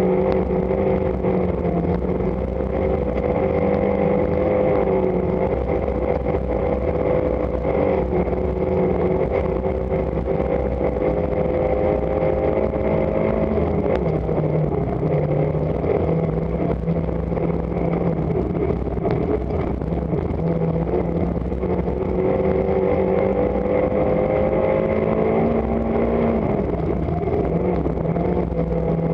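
Rally car engine running hard at high revs, heard from inside the cabin over steady road and tyre noise. The engine note drops sharply about halfway through and again near the end.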